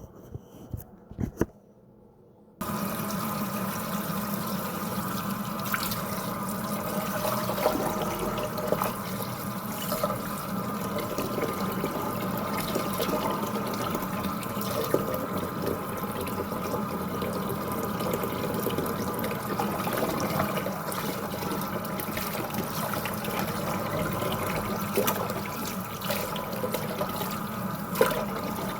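Tap water running steadily into a sink, turned on sharply about two and a half seconds in, with a few clicks and knocks before and during the flow.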